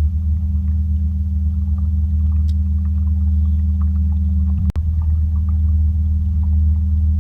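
A boat's motor running steadily, a loud low drone with a momentary break about two-thirds of the way through.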